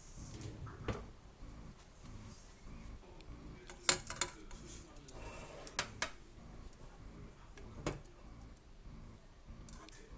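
Metal tongs and a stainless steel pot clinking as the pot of noodles is handled and lifted off a gas stove's grate. There are a few sharp clinks, the loudest about four seconds in, with more near six and eight seconds.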